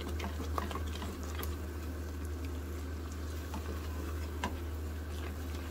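Thick sarson ka saag being stirred with a silicone spatula in a nonstick pot, with soft squelching and scattered small pops as it simmers on low flame.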